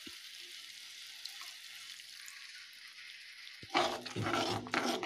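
Spiced masala sizzling steadily in hot oil in a pan, the oil having separated from it. About three and a half seconds in, water is added and stirred through, giving louder, irregular splashing and hissing.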